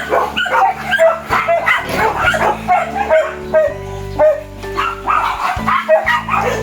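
Background music with sustained chords, over dogs yipping and barking in quick, repeated short calls.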